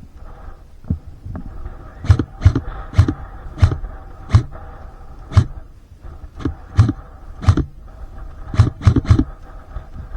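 A series of sharp knocks, each with a deep thump, irregularly spaced at about two a second with a pause in the middle, over a steady low hum.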